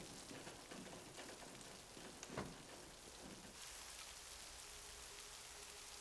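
Steady rain falling, with one short knock about two seconds in. A soft held note comes in near the end.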